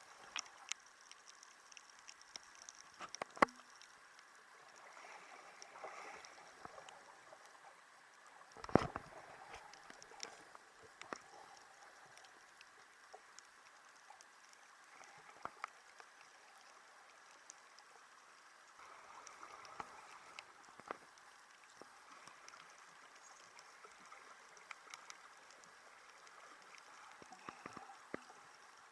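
Faint underwater ambience with scattered clicks and crackles, and two sharper knocks about three and a half and nine seconds in.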